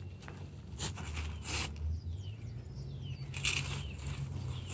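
Matches struck against a matchbox's striker strip three times without lighting, each strike a short raspy scratch, over a steady low hum.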